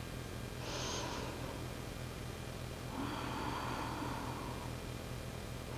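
A woman breathing audibly while holding a yoga bridge pose: a short hissing breath about a second in, then a longer, lower breath from about three seconds in. A steady low hum runs underneath.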